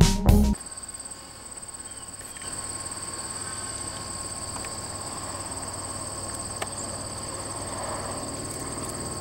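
Music cuts off about half a second in, leaving insects trilling steadily in two high, continuous tones.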